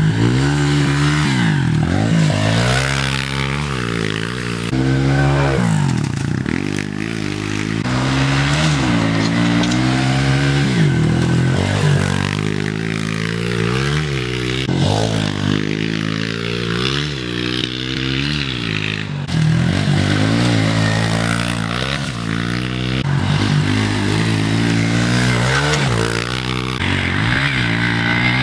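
Pit bike's small engine revving hard and easing off over and over as it is ridden round a dirt track, its pitch climbing and dropping every second or two with the throttle and gear changes.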